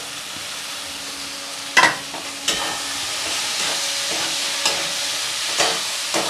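Spiced onion-tomato masala sizzling in hot oil in a kadai, with a spatula stirring and knocking against the pan several times. The sizzle gets louder about two seconds in.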